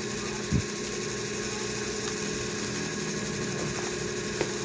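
A steady machine hum with several held tones, with a soft knock about half a second in and a few faint clicks.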